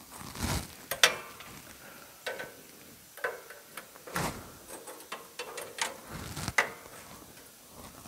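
A thin steel band-saw blade being fed onto the wheels of a Wood-Mizer LT15 Go sawmill: scattered metallic clicks, taps and scrapes as the blade knocks against the wheels and frame, the sharpest about a second in.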